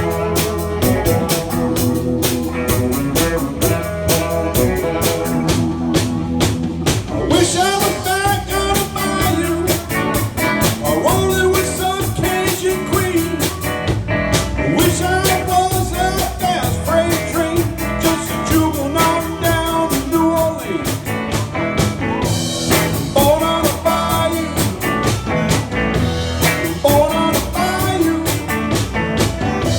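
A band playing blues-rock on a steady drum beat during a sound check. A singer comes in about seven seconds in.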